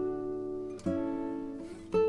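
Background music of strummed acoustic guitar chords, each ringing out and fading before the next is struck a little under a second in.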